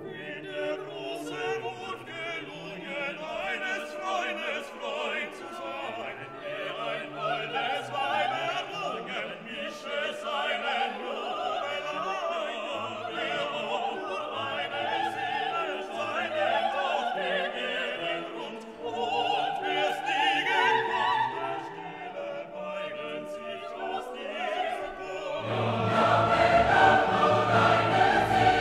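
Background music: classical music with operatic singing over an orchestra. It swells louder and fuller near the end.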